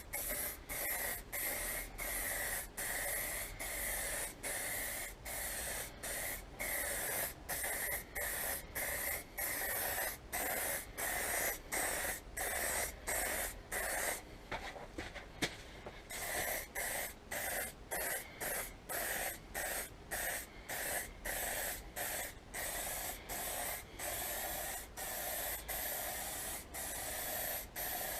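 Aerosol spray can of clear lacquer hissing in short, quick bursts, about one and a half a second, with brief breaks between them as the clear coat is laid on a plastic motorcycle panel.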